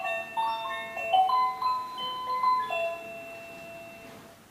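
Engstler quartz cuckoo clock's musical movement playing the last bars of its hourly melody in clear, chime-like notes, ending on a held final note that fades away.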